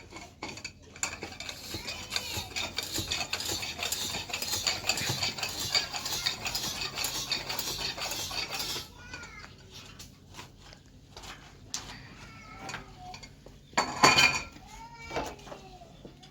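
Rapid metallic clinking and rattling, dense for about eight seconds, then stopping. A quieter stretch follows, with one sharp knock near the end.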